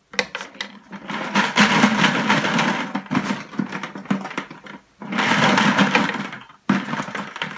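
Felt-tip markers rattling and clattering inside a plastic Home Depot bucket as a hand rummages through them and the bucket is tipped and shaken, in two long stretches with a brief break about five seconds in.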